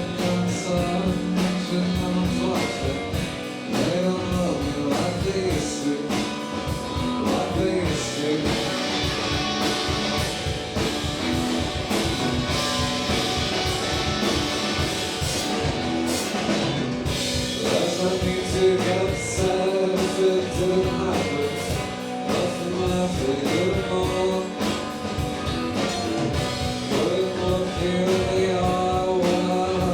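A live indie rock band playing a song, with guitar, drums and singing.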